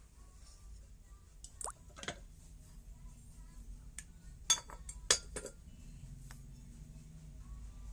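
Hard objects clinking and knocking together in a handful of short, sharp strikes, the loudest two about half a second apart near the middle.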